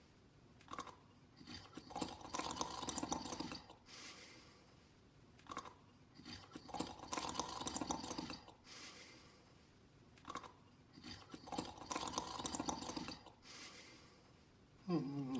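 Slow, steady snoring: a rasping snore about every four to five seconds, each with a shorter breath sound between. Near the end there is a brief, louder vocal sound with a gliding pitch.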